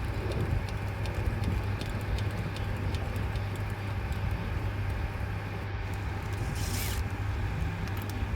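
Trolley floor jack being pumped to lift a car, with rapid small clicks and creaks from the jack's handle and mechanism, over a steady low hum. A short hiss comes about six and a half seconds in.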